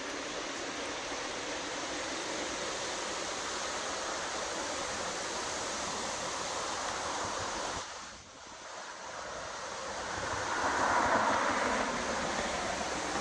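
Strong wind gusting through leafy trees, a steady rush of rustling foliage. It drops off briefly about eight seconds in, then a stronger gust comes through.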